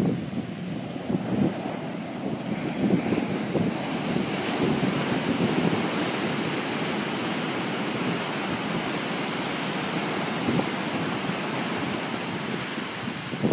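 Ocean surf breaking and washing ashore as a steady rush, with wind buffeting the microphone in low gusts.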